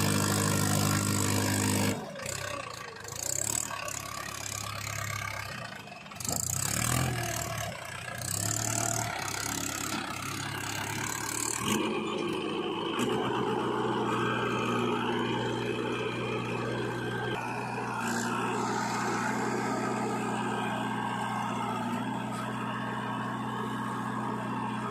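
Diesel engines of a JCB 3DX backhoe loader and a Mahindra farm tractor running as the tractor is loaded with soil: uneven for the first half, then a sudden change about halfway to a steady engine hum.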